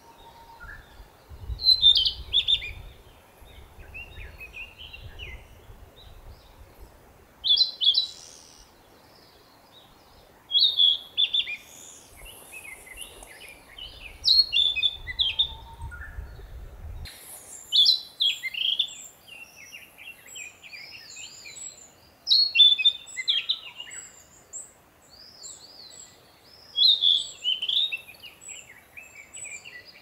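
Male narcissus flycatcher singing its territorial song: short, varied whistled phrases about seven times, every three to five seconds, with softer chirps between them.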